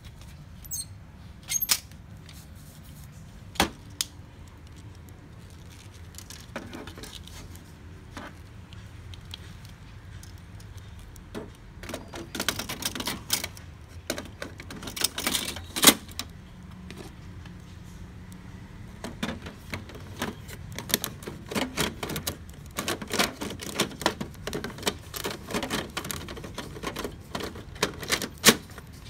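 Plastic clicks, knocks and rattles from hands handling parts inside the open cartridge bay of an HP LaserJet Pro MFP M227fdw laser printer: a few single clicks at first, then bursts of rapid clicking through the second half.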